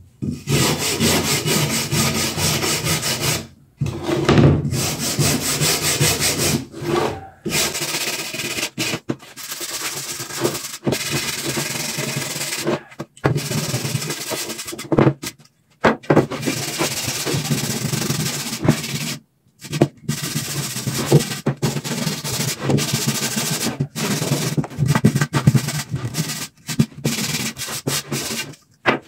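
Steel wire brush scrubbing dried cement, sand and plaster off old eucalyptus pallet slats, a harsh scratching in stretches of a few seconds with short breaks between them.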